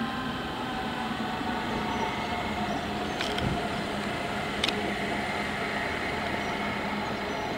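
Red DB electric multiple unit pulling out of the station, running with a steady low hum and a higher whine. Two sharp clicks come about three and four and a half seconds in.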